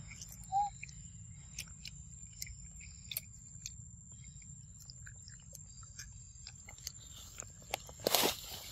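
A long-tailed macaque biting into and chewing a ripe yellow fruit, with small clicks of chewing scattered throughout. A louder rustle of dry leaf litter comes near the end.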